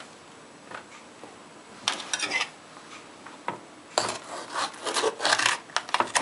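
A pale green pepper handled and cut on a plastic cutting board: a brief rubbing burst about two seconds in, then from about four seconds a denser run of crisp scraping and crunching as a knife cuts into the pepper.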